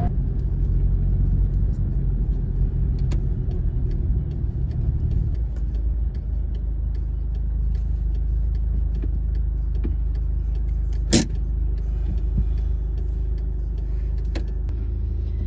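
Cabin sound of a Volkswagen Polo GTI: low engine and road rumble as the car is driven in and comes to a stop, settling after about five seconds to a lighter, steady engine idle. A single sharp click sounds about 11 seconds in.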